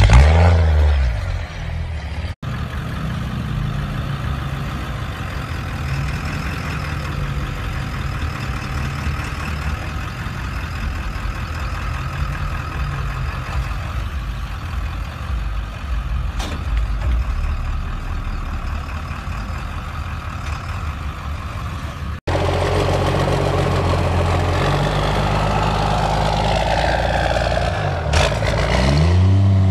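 Pickup truck engines across several short clips: after a brief loud pull at the start, one engine idles steadily for most of the time, and near the end another truck revs up and down.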